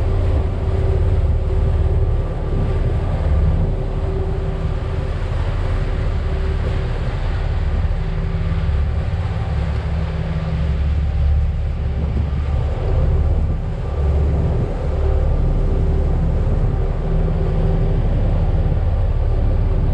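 Party boat's engines running steadily underway, a constant hum, with wind gusting on the microphone.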